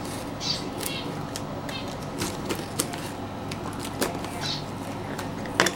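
Utility knife slitting the packing tape along the seams of a cardboard shipping box: a run of sharp clicks and short scraping rasps as the blade and hands work the cardboard.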